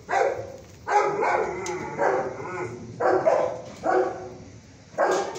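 A dog barking, about six barks roughly a second apart.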